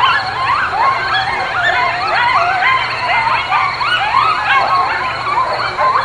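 Many animals calling at once: a dense chorus of high, overlapping whining calls, each gliding up and down, with no break.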